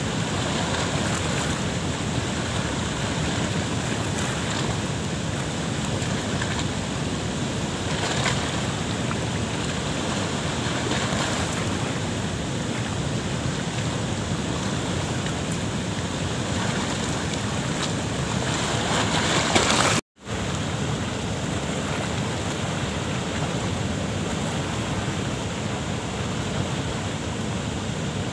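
Water pouring through the open gates of a concrete dam spillway and rushing down the rocky river channel, a steady loud rush. It cuts out for a moment about two-thirds of the way in, then carries on the same.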